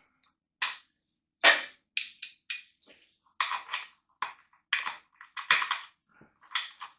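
Ratchet wrench clicking in a string of short strokes, about a dozen uneven rasps, as the oil drain bolt is tightened down.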